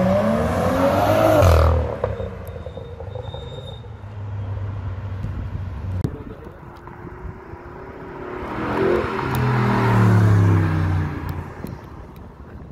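A car accelerating hard, its engine note climbing steeply and peaking about a second and a half in, then dropping away. A second car's engine swells and passes by later, loudest about ten seconds in.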